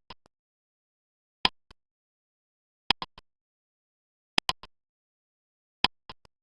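Quiz countdown timer sound effect: four sharp ticks about a second and a half apart, each followed by one or two fainter clicks, with dead silence between.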